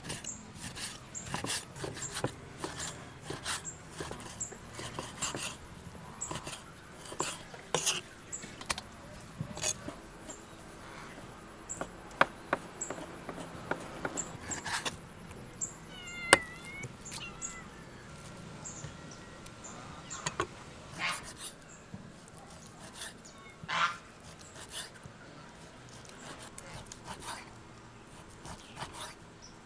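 Cleaver slicing raw beef against a wooden chopping board: irregular knocks of the blade on the wood, in quick runs at times. A short animal call near the middle.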